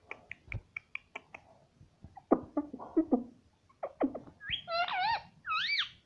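Indian ringneck parakeet vocalising: a quick run of short high chirps, then low mumbled chatter, then loud wavering whistles that rise and fall near the end.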